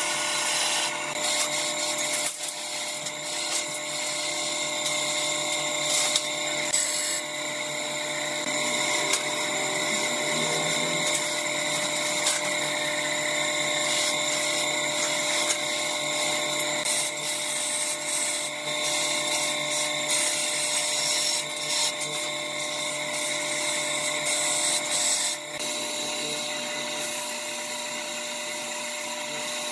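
Wood lathe running with a steady motor whine while a hand-held turning chisel cuts into the spinning wooden spindle, a continuous scraping with frequent short catches. About 25 seconds in the cutting stops, and sandpaper held against the turning wood gives a softer rubbing sound.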